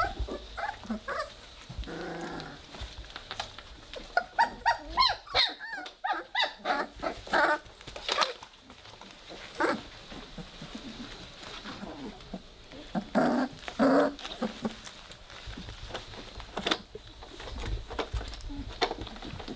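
Three-week-old Weimaraner puppies play-fighting, giving small growls in short bursts, heaviest about four to eight seconds in and again around thirteen to fourteen seconds.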